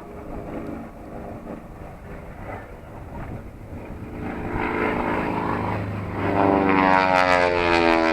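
An airplane approaching and flying close by, its engine growing steadily louder through the first six seconds and loudest near the end, with the tone sweeping as it passes.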